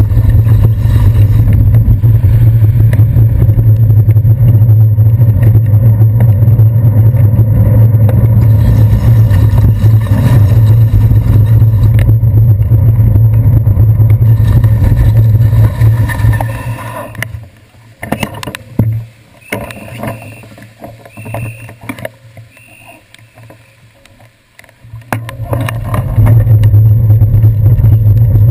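Loud, steady low rumble of a bicycle riding over wet streets, picked up through a handlebar-mounted GoPro Hero 2 in its housing. A bit past halfway it drops away for about nine seconds as the bike stops at an intersection, leaving faint traffic noise with a few knocks. The rumble returns near the end as the ride resumes.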